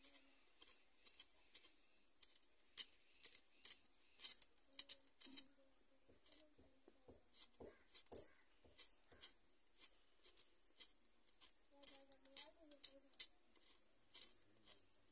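Faint, irregular sharp clicks, several in some seconds, from a knife cutting vegetables held in the hand.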